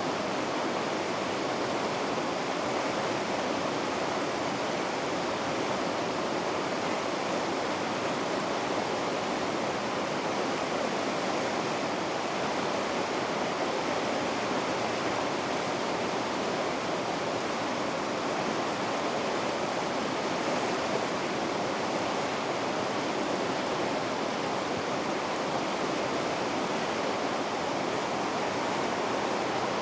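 Water rushing over river rapids in an even, unbroken roar.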